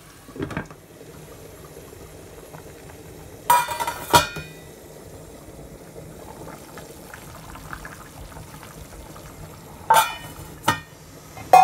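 Glass pan lids and a small glass bowl clinking against cookware: two sharp clinks about a third of the way in, two more near the end, and a last one that rings on. Under them, a low steady bubbling of food simmering in the covered pan.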